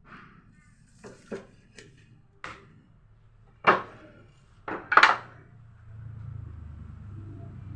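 Several sharp wooden knocks and clatters, as of timber and tools being handled and set down, the loudest two about two-thirds of the way through. Then a steady electric motor hum starts up.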